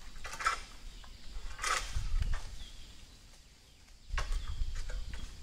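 Outdoor ambience among vegetation: two brief rustles in the first two seconds, with low rumbling on the phone's microphone that drops away and picks up again about four seconds in.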